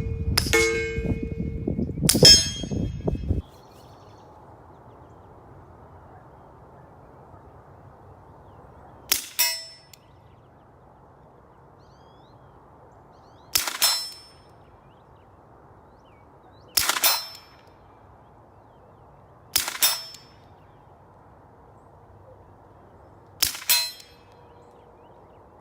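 Suppressed Glock 17 9mm pistol with a SilencerCo Octane 9 suppressor firing. A couple of shots and a ringing clang cut off suddenly about three seconds in. Then come five slow, evenly spaced shots, each followed a split second later by a metallic clang of a steel target being hit.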